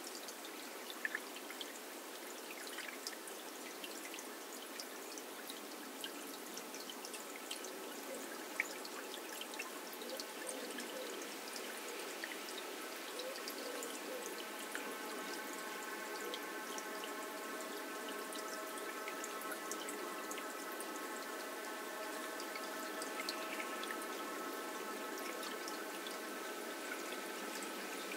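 Water trickling and pouring, with scattered sharp drips. About halfway in, a steady held chord of several tones fades in under the water and stays.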